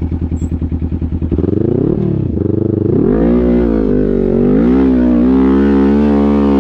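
Sport quad's engine idling with an even, pulsing beat. About a second and a half in it is revved up and down, then held at high revs with a steady pitch as the quad pulls up a steep sand slope.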